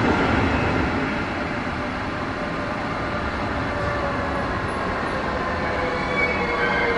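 Red DB double-deck regional coaches rolling past at close range: a steady rumble of steel wheels on rails. Near the end a few high, steady tones join in.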